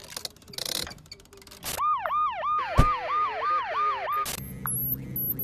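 A siren sounding in a rapid up-and-down yelp, about three cycles a second, for a couple of seconds, with a single thud partway through. It is preceded by a few short hissing bursts and followed by a low steady hum.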